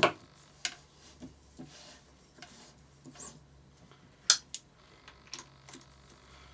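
Metal hand tools clinking and knocking against engine parts during cam sprocket fitting: a series of separate clicks and knocks, loudest at the start and about four seconds in.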